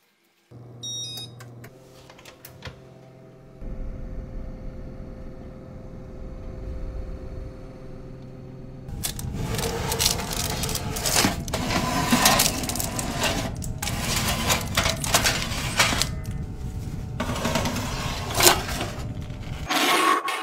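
An electric oven's control panel beeps a few times as it is set, and the oven runs with a steady low hum. From about nine seconds in, metal oven racks and baking trays clatter and scrape loudly as they are slid out of the oven.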